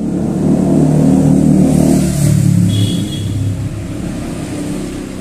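A motor vehicle's engine drawing near and passing, loudest a couple of seconds in and then fading away.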